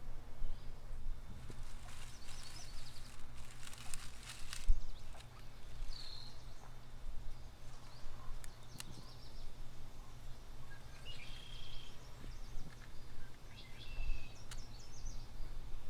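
Outdoor ambience: a steady low rumble with a few short bird chirps scattered through it, a stretch of rustling early on, and occasional light knocks.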